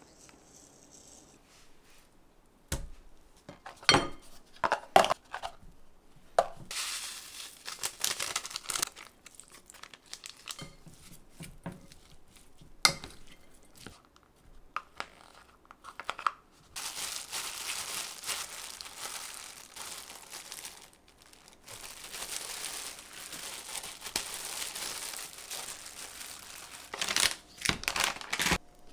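Packaging crinkling and rustling in several long stretches, with scattered knocks and clicks in between.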